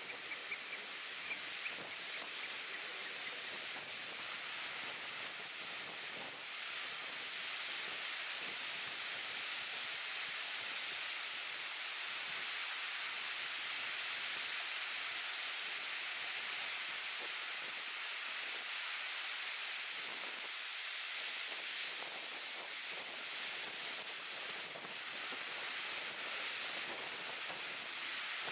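Surf washing onto a beach, a steady hiss that swells and eases, with wind across the microphone.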